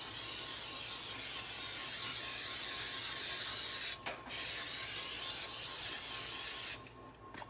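Aerosol can of Pam cooking spray hissing as it coats a metal cooling rack: one long spray, a short break about four seconds in, then a second spray that stops near the end.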